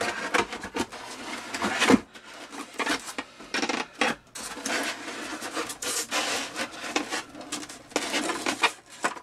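Foam base of a model ski slope being handled and shifted, with repeated rough rubbing and scraping of foam against foam and the work mat, and a single knock about two seconds in.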